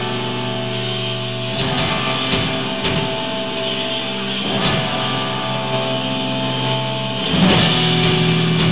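Live rock band playing: electric guitars ringing out held chords with a few scattered drum hits, and the band comes in louder and heavier about seven seconds in.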